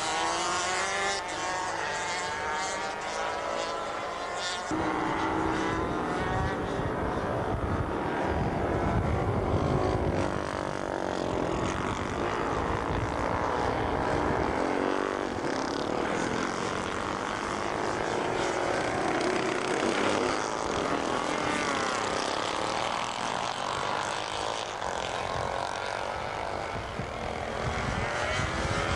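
Several racing motorcycle engines running hard as the bikes pass one after another, each rising and falling in pitch with acceleration and gear changes, with a deeper rumble joining about five seconds in.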